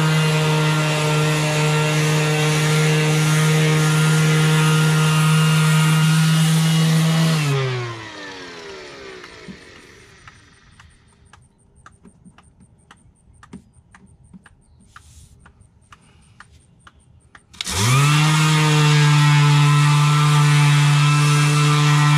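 Ryobi 18-volt cordless random orbital sander running steadily against a fiberglass patch on a boat hull. It is switched off about seven and a half seconds in and winds down with a falling whine. A few seconds of faint, regular ticking follow, about three a second. Then the sander starts again about seventeen and a half seconds in and quickly runs back up to speed.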